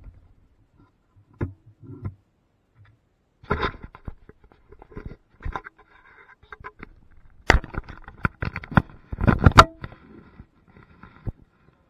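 Wooden pieces and tools being handled: scattered knocks, clicks and scraping, with a dense run of louder knocks and clatter in the later part.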